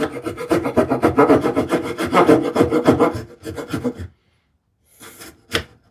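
Hand saw cutting into wood with short, rapid back-and-forth strokes, kerfing a groove to depth. The sawing stops about four seconds in, followed by a few faint knocks.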